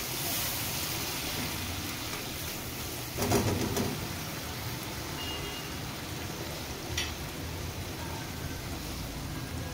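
Curd-and-spice masala paste bubbling and sizzling in oil in a steel pan, cooking down to the stage where the oil separates from the curd. A brief louder sound comes about three seconds in, and a short click near seven seconds.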